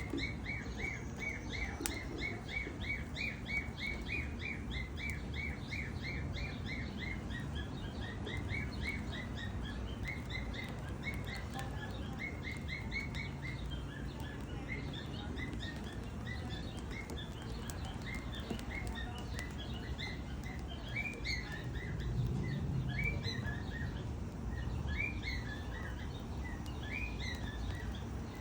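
A bird chirping in quick runs of short, repeated high notes, about five a second at first and more spaced out later, over a steady low rumble with a few faint crackles from a fire.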